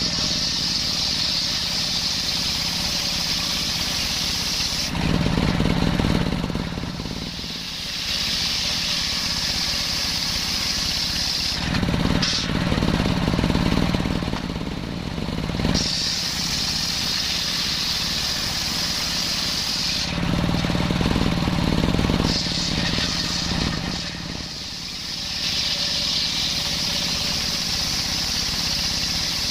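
Circular saw cutting coconut-palm timber. A high whine while the blade spins free alternates with a louder, lower tone as it bites into the wood, several times over.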